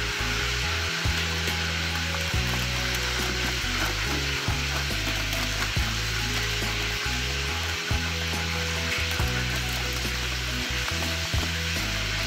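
Steady sizzling hiss like food frying in hot oil.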